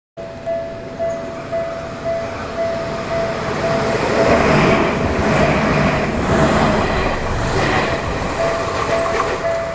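Level-crossing warning bell ringing about twice a second as a Tokyu Ikegami Line electric train passes over the crossing. The train's rumble and wheel noise swell through the middle and fade near the end.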